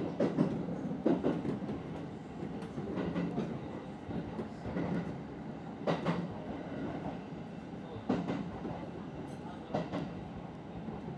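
Kintetsu Ikoma Line electric commuter train running on the rails, heard from inside the rear cab: a steady running rumble with the wheels clacking over rail joints every second or two.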